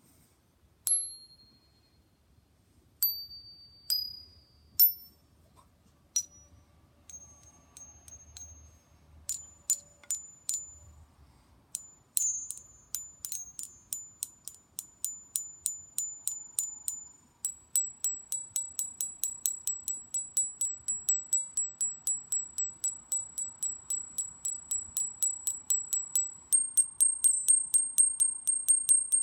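Hanging bar chimes struck with a metal rod: a few separate strikes on different bars in the first five seconds, then rapid repeated tapping on a high bar from about nine seconds in, several strikes a second and growing louder. The high bars give only short, high pings and clunks instead of ringing on, a fault the owner puts down to the high notes not ringing.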